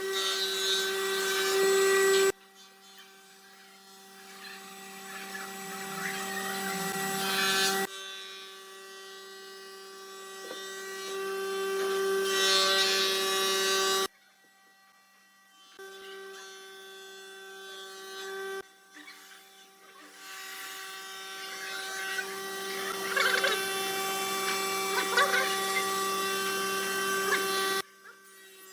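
Electric power tool running with a steady whine while working wood, in several takes that start and stop abruptly, the noise building within most of them.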